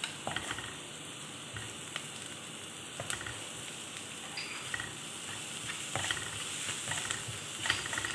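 Chopped onions and spice powder sizzling in a little oil in a nonstick wok, stirred with a wooden spatula that scrapes and knocks against the pan now and then.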